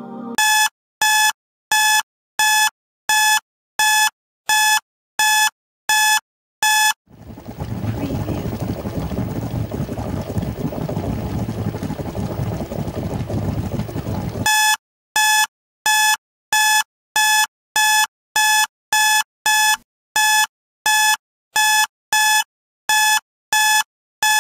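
Electronic alarm clock beeping: a steady, even run of short high beeps, about one and a half a second. After about seven seconds the beeping gives way to a stretch of dense hissing noise, and it starts again about halfway through.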